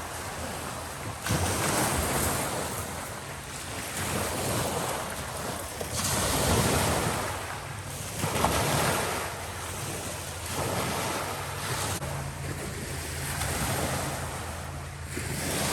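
Lake waves from a swell washing onto the shore, surging every two to three seconds, with wind buffeting the microphone. A low steady hum joins in the last few seconds.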